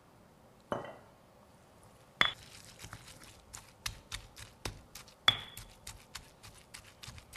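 Pestle pounding in a mortar, crushing curry leaves, coriander, garlic, green chili and cashew nuts into a pesto: a single knock about a second in, then from about two seconds a steady run of sharp strikes, about three a second, a few louder ones ringing briefly.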